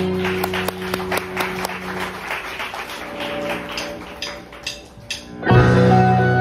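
Sunburst Stratocaster-style electric guitar playing, sustained notes over a quick ticking rhythm, then a loud chord struck about five and a half seconds in that rings on.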